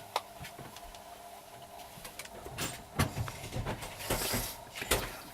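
A sleeping pet snoring, with a breathy rasp about four seconds in. Sharp clicks and knocks close to the microphone are the loudest sounds, about three and five seconds in.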